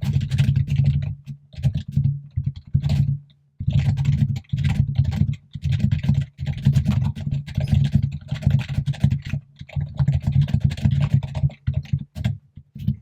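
Fast, continuous typing on a computer keyboard, each keystroke a clack with a low thud, with a short pause about three and a half seconds in.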